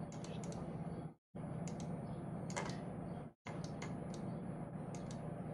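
Scattered light clicks from computer keyboard and mouse use over a steady low electrical hum; the background drops out to silence for a moment twice.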